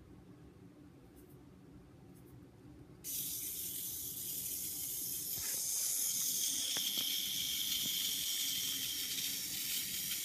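Battery-powered line-following toy tank driving along a drawn marker line: its small electric motor and gears make a steady high whirring hiss that starts abruptly about three seconds in.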